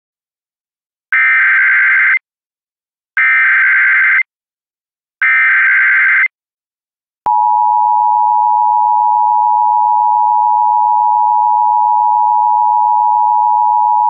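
Emergency Alert System SAME header for a Civil Emergency Message: three one-second bursts of warbling digital data tones about a second apart, then the EAS two-tone attention signal (853 and 960 Hz) coming on about seven seconds in and holding steady at one pitch.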